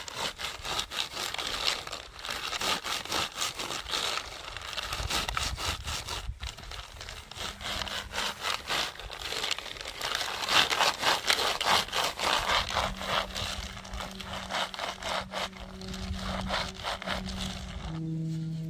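Ginkgo nuts rubbed by rubber-gloved hands against a plastic mesh basket to scrub off their pulp: continuous scraping and rattling made of many quick strokes.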